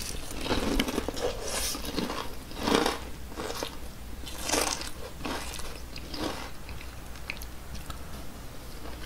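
Close-miked chewing of a mouthful of crispy fried chicken: crunches come in separate bursts about once a second and grow softer toward the end.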